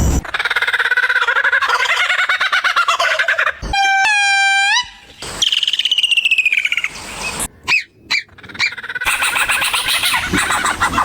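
Bird calls and songs from several different birds in quick succession, each cut off abruptly. First dense chattering trills, then a clear call that rises at its end about four seconds in, a falling whistle, a few short calls, and more dense chatter near the end.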